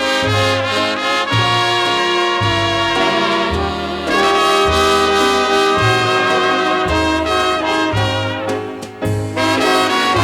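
Instrumental dance-band music from a record: trumpets and trombones playing held melody notes over a bass line that moves in regular steps, without singing.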